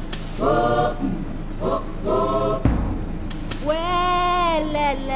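Background music: a choir singing, with phrases that rise and fall and one long held phrase near the end.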